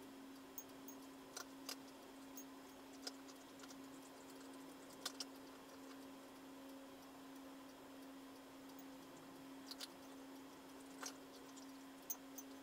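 Near-silent room tone: a faint steady hum with scattered light clicks and ticks at irregular intervals.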